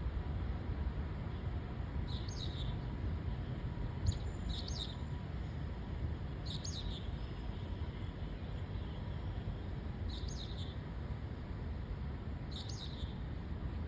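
Black bulbul calling: about six short, downward-sweeping calls spaced a couple of seconds apart, two of them in a quick pair, over a steady low rumble of background noise.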